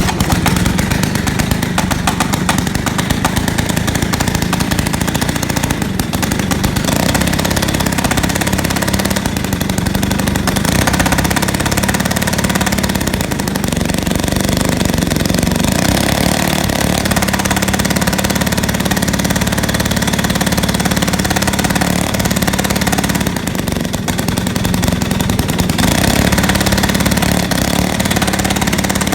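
Pionjar gas-powered breaker drill's two-stroke engine running steadily and loudly, with a fast, even rattle of strokes.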